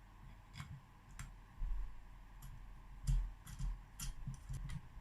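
Scattered light metallic clicks and a few dull knocks as a crank pusher tool and its bolts are fitted to a two-stroke motorcycle engine's crankcase.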